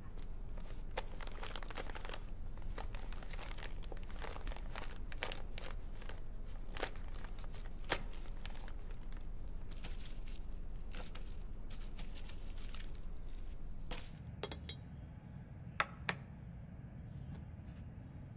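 Paper crinkling and rustling in the hands, a dense run of small crackles that stops about fourteen seconds in. It is followed by a few light, separate clicks of porcelain teaware.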